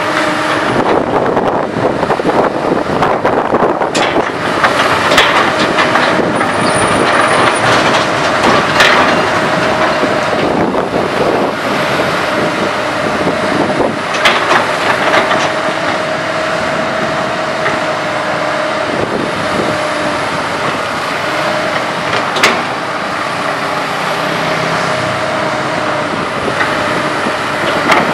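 Komatsu PC200 hydraulic excavator working, its diesel engine running under load with a steady whine, and sharp clanks of the steel bucket and tracks every few seconds as it digs soil.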